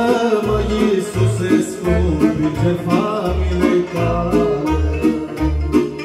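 Korg electronic keyboard playing a wordless instrumental passage: chords and a melody over a bass note that sounds about twice a second, with a plucked-string-like accompaniment.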